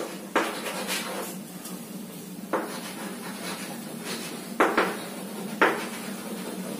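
Chalk writing on a blackboard: a faint scratching of the strokes, with several short sharp taps as the chalk strikes the board.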